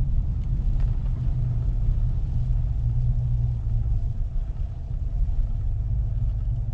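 Steady low rumble of a Chevrolet Silverado pickup driving on snowy roads, heard from inside the cab.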